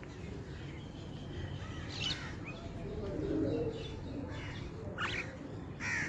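Common mynas and doves at scattered grain: a few short, sharp bird calls about two seconds in and again near the end, and a low coo about three seconds in.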